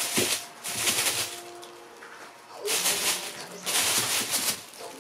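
Thin plastic bag crinkling and rustling in four loud bursts as a kitten pounces on and burrows into it.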